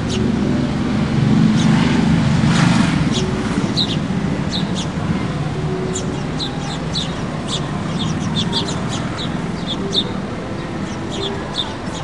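Small birds chirping, many short high calls in quick, irregular succession, over city traffic rumble that swells and eases in the first few seconds.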